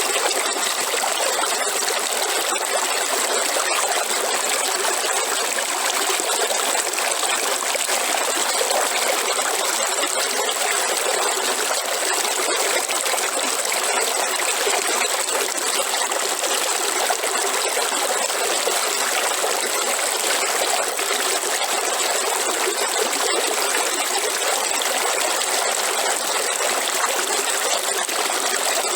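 River water flowing: a steady, even rush of running water that holds unchanged throughout, without any deep rumble.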